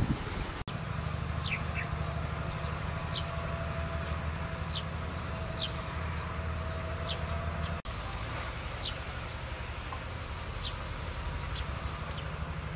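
Insect buzzing, a steady low drone, with short high chirps repeating every second or so.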